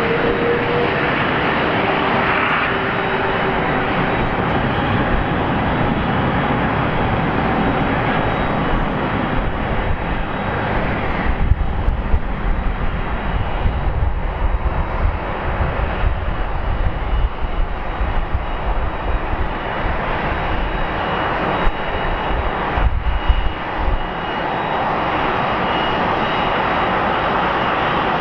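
Airbus A380's four Rolls-Royce Trent 900 turbofans running steadily at taxi power as the airliner rolls past, with a faint whine that slides slightly down in pitch in the first second or two. In the middle stretch an uneven low rumble comes and goes.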